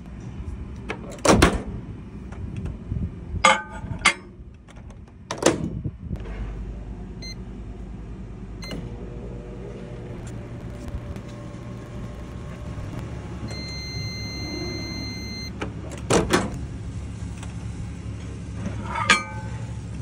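Countertop microwave oven heating a lobster tail: a few knocks and clacks as it is loaded and shut, then a steady low hum while it runs. Near the end a beep sounds for about two seconds as the cooking finishes, followed by a loud clack as the door is opened.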